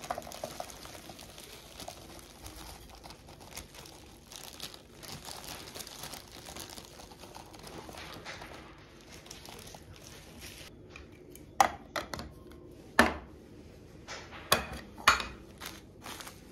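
A plastic spice bag crinkling as ground spice pours from it into a plastic canister. In the last few seconds it goes quieter, with four or five sharp knocks.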